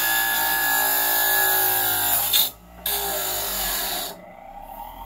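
Mastercraft MAXIMUM 6-inch variable-speed bench grinder running at full speed with wood pressed against the spinning wheel: a harsh grinding over the motor's whine, broken off briefly about halfway. About four seconds in the wood comes away and the wheel runs on free, quieter.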